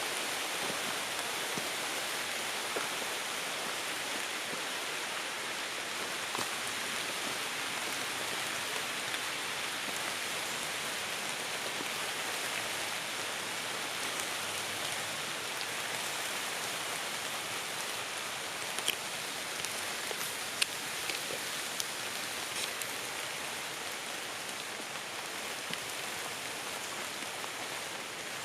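Light rain falling on tree leaves: a steady patter, with a few louder individual drops partway through.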